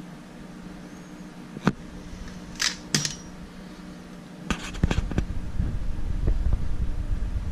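Handling noise: a sharp click, two short rustles, then a cluster of clicks, after which a low rumble of handling sets in, over a low steady hum.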